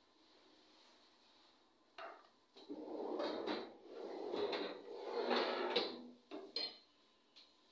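Kitchen cabinet being worked: a sharp knock about two seconds in, then a few seconds of rattling and scraping, and a few short knocks near the end.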